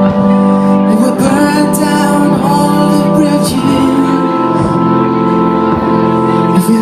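Live band performance of an R&B-pop song: a singer's voice gliding over sustained keyboard chords, a steady low bass note and light cymbal hits.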